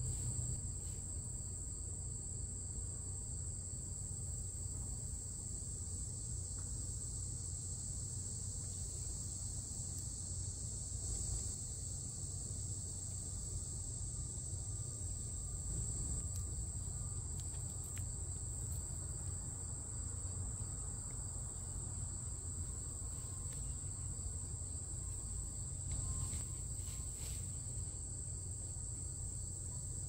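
Steady high-pitched insect chorus trilling without a break, over a low steady rumble.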